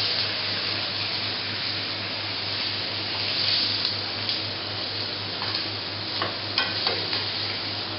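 Floured ossobuco veal shanks sizzling steadily as they brown in a hot pan. A few light clicks come near the end.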